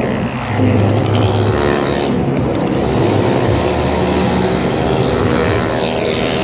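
Two motorcycles ride around the vertical wooden wall of a well-of-death drum, their engines running loud and hard. The engine note swells and fades as the riders circle.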